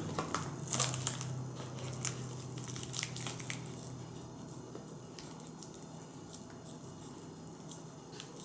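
Crinkling and rustling of a padded mailer envelope being handled and worked open, with bursts of crackles in the first few seconds that die down to faint, scattered rustles.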